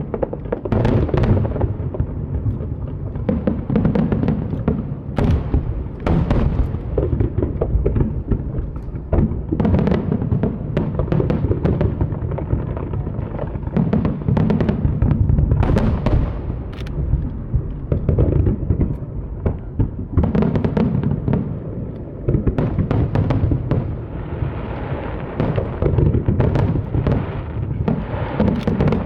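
Aerial fireworks shells bursting in a continuous barrage, many sharp booms in quick succession over a deep, rolling rumble.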